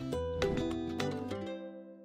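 Closing music: a few separate notes in quick succession that then ring on and fade away.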